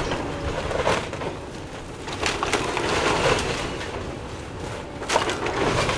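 Excavator demolishing a wood-framed building: timber splintering and cracking, with irregular crashes of falling debris over a steady low rumble. The sharpest crack comes about five seconds in.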